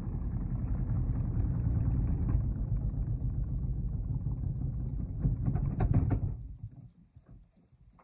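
Indesit Innex front-loading washing machine running with a steady low rumble and a few knocks. It cuts off about six seconds in.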